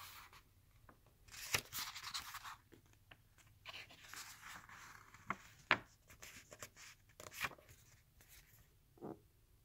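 Pages of a book turned by hand: faint paper rustling, in two longer stretches, with several short sharp flicks of paper.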